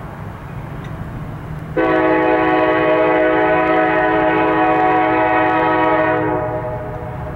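A diesel locomotive's multi-note air horn sounds one long blast of about four and a half seconds, starting abruptly a couple of seconds in and fading out near the end, over a steady low rumble.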